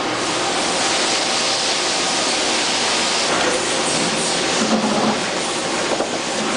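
1985 Mazak Quick Turn 20N CNC lathe running: a steady mechanical whir and hiss with a few light knocks.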